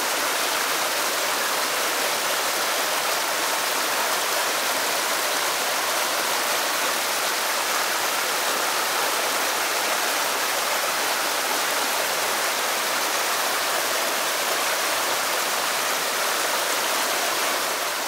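Shallow rocky stream running over small cascades: a steady, even rush of flowing water.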